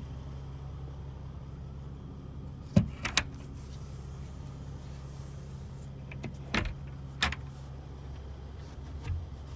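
Sharp knocks and taps from handling inside a carpet-lined minibus luggage compartment: three in quick succession about three seconds in, the first the loudest, a few more between six and seven and a half seconds, and a softer one near the end, over a steady low hum.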